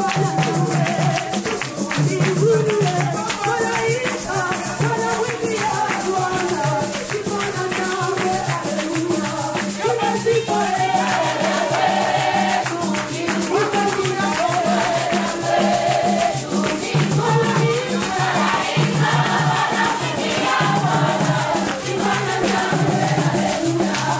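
Worship song: voices singing a melody over a fast, steady shaker rhythm and a pulsing bass line.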